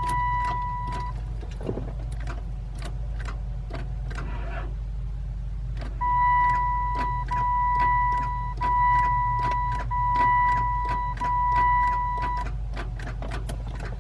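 A car's electronic warning tone sounding in long, barely broken stretches: it stops about a second in and comes back for about six seconds from midway. A regular ticking of about three to four clicks a second runs under a low steady hum.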